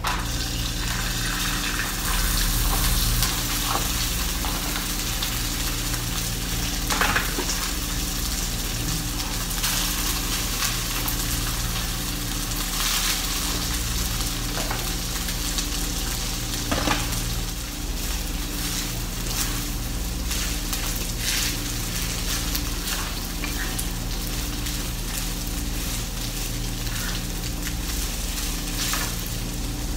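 Cooked rice frying in hot oil in a frying pan: a steady sizzle, with a spatula stirring and scraping it now and then.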